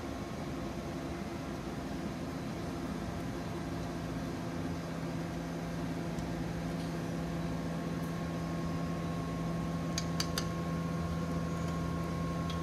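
Steady workshop hum of a fan or air-conditioning unit, with a low tone coming in a few seconds in and a higher whine joining later. About ten seconds in come three light metal clicks of the hex wrench on the radiator bolt.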